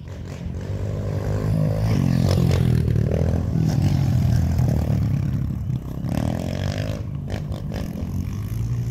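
Small dirt bike engine running as the bike rides up and passes close by, loudest about four seconds in, its pitch rising and falling as the throttle opens and closes. A few sharp clicks near the end.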